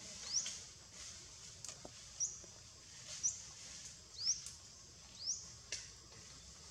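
A bird calling in the background, repeating a short, high, rising chirp about once a second, five times in all, with a few faint sharp clicks between the calls.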